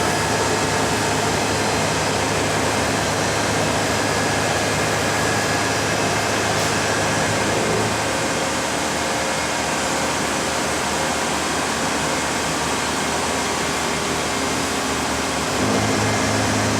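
Large CNC horizontal boring mill running under power, a steady mechanical hum and whir. A low hum in it drops out about halfway through and comes back shortly before the end, as a drive or axis motor stops and starts.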